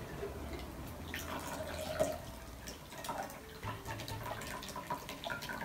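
Shaken cocktail poured from a cocktail shaker into a martini glass: liquid trickling and dripping in an uneven stream, with small irregular clicks throughout and a louder splash about two seconds in.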